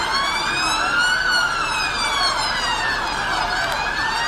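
Police vehicle siren sounding a slow wail: the pitch climbs to a peak about a second in, falls slowly for a couple of seconds, then starts to climb again near the end, over steady street noise.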